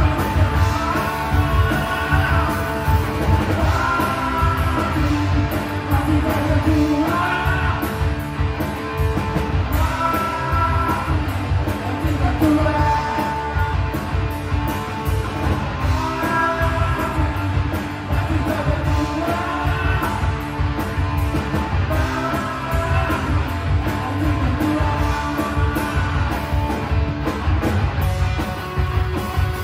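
Live rock band playing: electric guitar, electric bass and drum kit, with a repeating melodic phrase over a steady beat.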